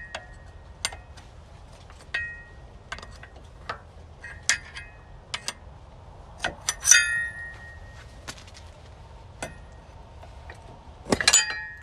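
Metal hand tools clinking and tapping against the wheel hub and axle nut: scattered sharp metallic clicks, some ringing briefly, the loudest about seven seconds in and a quick run of clinks near the end.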